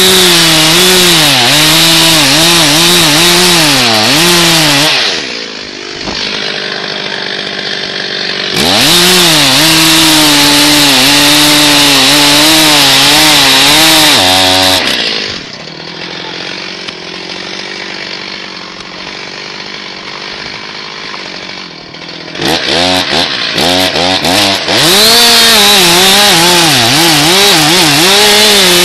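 Stihl MS361 two-stroke chainsaw cutting wood at full throttle in three long cuts, its pitch wobbling under load. Between cuts it drops back to idle, and it gives a few quick throttle blips before the last cut.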